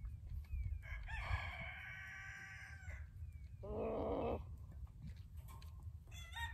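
A rooster crowing once, about a second in and lasting about two seconds, then a shorter, rougher animal call near four seconds in. Another crow starts near the end.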